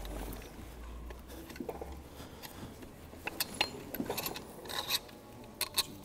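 Light metal clinks and scraping from gloved hands working a connecting rod cap on the crankshaft of a stripped 2.4-litre G4KE engine, with a few sharp ticks in the second half.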